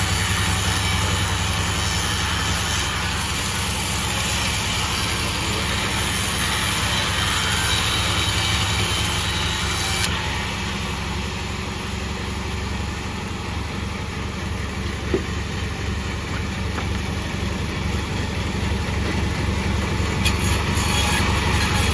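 Sawmill machine running steadily while sawing sonokembang wood, a constant low drone from its drive with a high hissing noise on top that drops away about ten seconds in.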